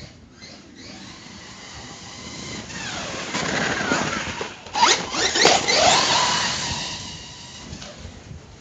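Brushless electric motor of a Hobao Hyper ST Pro RC truck whining as it is driven, its pitch gliding up and down with the throttle. The whine grows louder from about three seconds in, is loudest just past the middle, then fades away.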